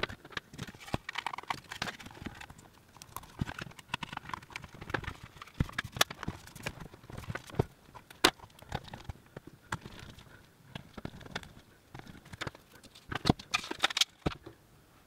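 Hands reassembling a plastic LCD monitor housing: irregular clicks, taps and knocks of plastic parts being handled and set down on a silicone work mat, with a sharp click about eight seconds in and a flurry of clicks near the end.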